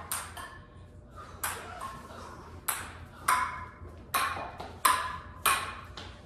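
A ping-pong ball being hit back and forth with paddles and bouncing. It makes a sharp, pinging click about once a second, each click with a brief ring, around eight in all.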